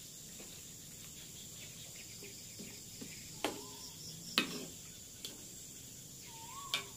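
Faint, steady chirring of crickets, with a metal ladle clinking against a steel wok three times as the pan is stirred; the loudest clink is a little past the middle.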